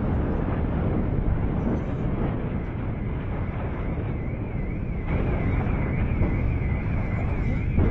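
Steady low rumble hanging over the city just after an airstrike explosion, with a high warbling alarm starting about five seconds in.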